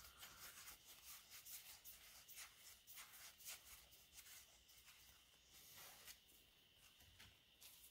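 Faint soft ticks and rubbing of Pokémon trading cards sliding against each other as a stack is fanned out in the hands, a quick run of small clicks that thins out after about four seconds.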